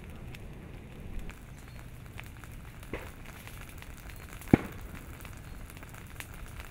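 Leaf litter and vegetation crackling and sizzling as they burn at the edge of an advancing pahoehoe lava flow, with many small pops. About two-thirds through comes one loud, sharp bang, a methane blast: gas from buried plant matter set off by the lava.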